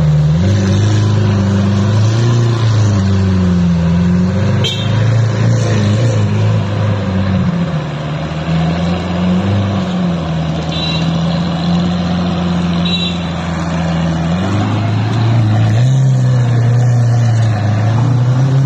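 Lamborghini Aventador's V12 running at low revs, its pitch rising and falling with light throttle as the car moves off.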